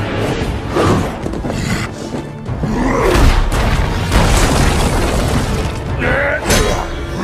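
Action-film sound mix: dramatic score under a series of heavy booms and crashing impacts, with debris smashing as a body is hurled along the ground.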